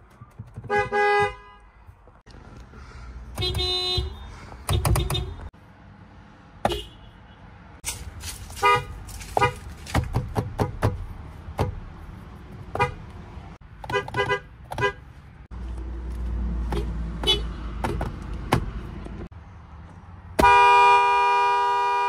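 Horns of several different cars honked one after another, mostly quick short taps in differing pitches, ending with one long steady blast near the end.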